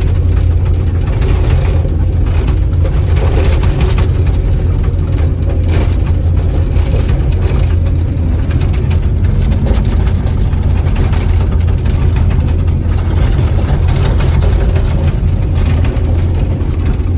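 Heavy diesel earthmoving machinery running steadily: a deep, constant engine drone with scattered light knocks.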